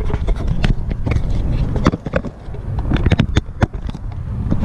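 Camera handling noise as the camera is brought down and set on pavement: a run of irregular clicks, knocks and scrapes over a low rumble.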